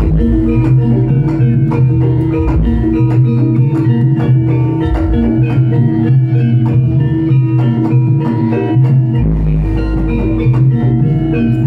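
Loud live jaranan music: a Javanese gamelan-style ensemble plays steady drum strokes under held pitched melody notes, with deep bass notes that come and go.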